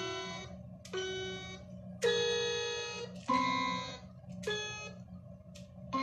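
Electronic toy floor piano mat playing single notes one at a time, about five slow notes at different pitches, each a bright electronic tone that starts sharply and fades away. A steady low hum runs underneath.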